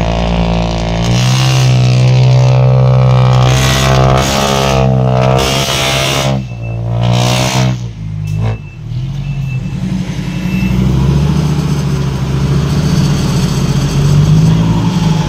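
Six-wheel dump truck's diesel engine, with a loud open exhaust, revving hard under load as the truck strains in the mud. The revs hold high and waver for the first several seconds, drop and pick up a few times midway, then settle into a steadier, lower pull.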